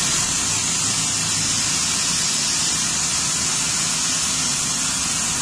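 Laser cladding equipment running: a loud, steady hiss of gas flow over a low machine hum.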